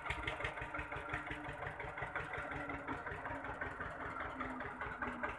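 Diesel tractor engine idling steadily, with a rapid, even beat of firing pulses.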